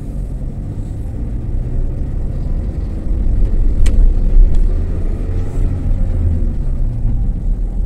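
A motor vehicle driving along a road: a steady low rumble of engine and road noise that grows louder about three seconds in, with one sharp click just before four seconds.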